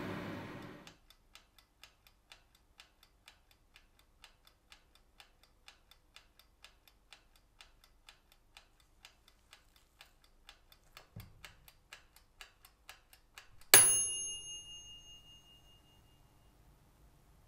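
A spray gun's hiss cuts off about a second in. Then an oven's clockwork timer ticks steadily, about three ticks a second, while the freshly painted part bakes, ending in a single loud bell ding near the end that rings out.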